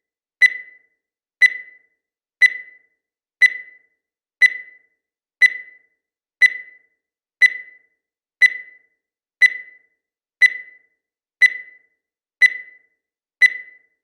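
Digital countdown timer beeping once a second, each beep marking one second of the count: fourteen short, high-pitched beeps, evenly spaced, each fading quickly.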